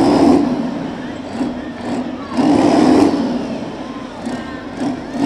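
Blown and turbocharged Detroit Diesel 16V92 two-stroke V16 in a burnout truck running hard with its rear tyres spinning. The engine note swells louder at the start and again about two and a half seconds in.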